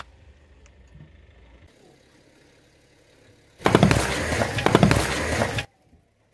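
A pressurised can bursting under a car tyre: a sudden pop about three and a half seconds in, then about two seconds of loud, crackling spray as the foam blasts out, cut off abruptly.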